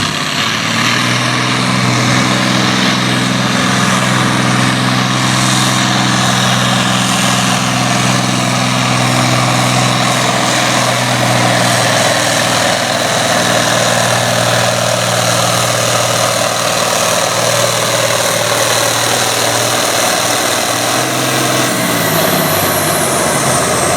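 A farm-class pulling tractor's engine running hard and steady under load as it drags the weight sled, easing off about 21 seconds in at the end of the pull.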